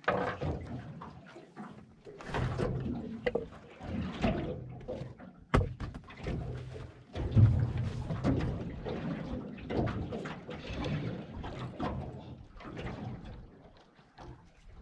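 Knocks and thuds on a small boat's deck and hull, with water sloshing against the hull; one sharp knock stands out about five and a half seconds in.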